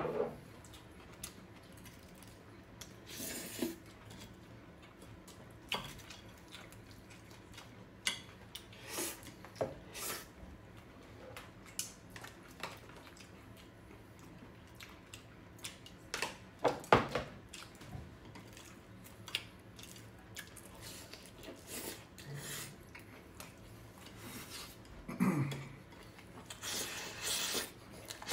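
Tableware clatter during a meal: chopsticks and a spoon clicking and scraping against ceramic bowls, plates and a plastic container, in short scattered knocks.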